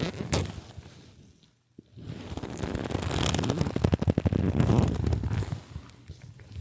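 Leather creaking in dense crackling runs: one creak fades out within the first two seconds, then a longer, louder run of creaking starts about two seconds in and fades near the end.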